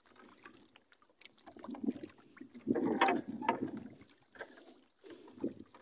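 Water splashing and lapping against a small outrigger boat's hull in irregular swells, with a few light knocks as a heavy longline is hauled aboard by hand.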